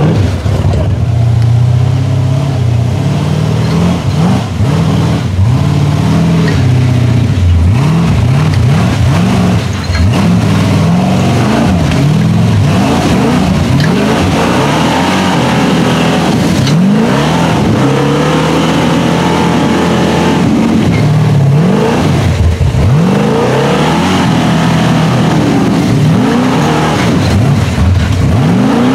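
Big-block V8 of a custom rock-crawling truck on Rockwell axles revving hard and repeatedly under load as it climbs. Its pitch rises and falls with each burst of throttle, several times a few seconds apart.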